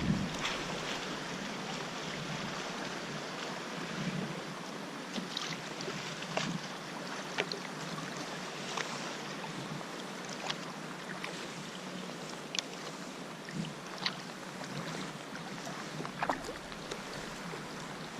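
Sea kayak being paddled, with water splashing and dripping off the paddle in short sharp ticks every second or two over a steady hiss of moving water.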